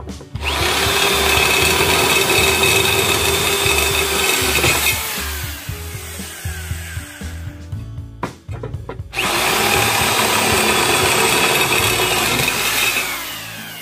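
Handheld electric drill boring through a steel angle bar in two runs of about four seconds each, the first starting just after the opening and the second about nine seconds in. Each run is a steady high whine that winds down as the drill stops, with a quieter gap between them.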